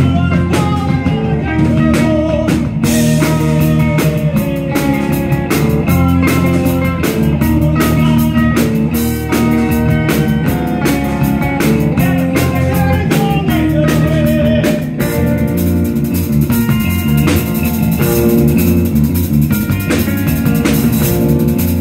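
Live rock band of electric bass, electric guitar and drum kit playing an instrumental passage, without singing. About fifteen seconds in the sound turns brighter and fuller in the high end.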